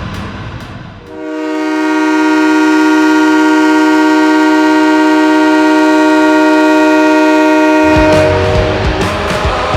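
Tucson Roadrunners' arena goal horn: one loud, steady blast of several tones sounding together. It starts about a second in and holds for about seven seconds, then music takes over near the end.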